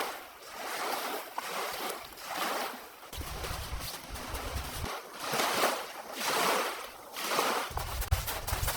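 Blizzard wind blowing in surges, each gust swelling and fading every second or two, with a low rumble of wind buffeting the microphone at times.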